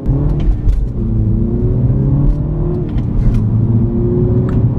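Mini Cooper S F56's turbocharged 2.0-litre four-cylinder, heard from inside the cabin, its drone rising and falling with the revs. Scattered light pops and crackles from the stock exhaust come on the overrun.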